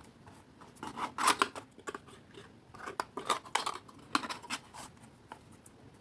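Cardstock papercraft box being handled and turned over: a run of light paper crackles and small taps, bunched between about one and five seconds in.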